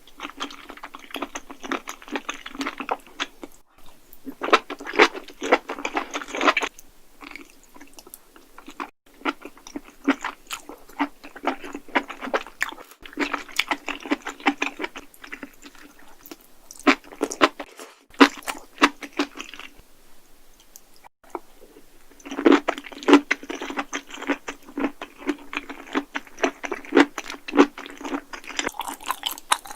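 Close-miked chewing of crunchy enoki mushrooms: dense crisp crunches in spurts, broken by a few abrupt cuts to a different eater.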